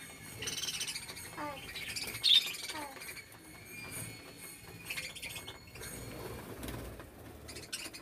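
Budgerigars chirping and chattering in short high calls, with one sharp, loud chirp about two seconds in, and a flutter of wings as a bird takes off from the feeding dish.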